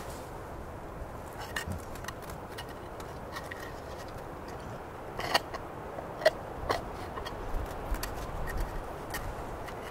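A dog chewing and carrying a wooden stick: scattered sharp clicks and scrapes of teeth and wood, the stick knocking and dragging on icy snow, the loudest two clicks about halfway through.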